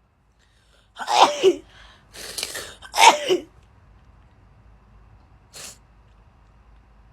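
A girl sneezing twice, about two seconds apart, with a breathy intake between the sneezes, during a sneezing fit from a covid test. A short breathy hiss follows about five and a half seconds in.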